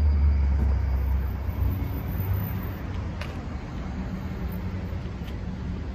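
Street traffic: a motor vehicle's low rumble close by, fading over the first second or two, then steady road noise.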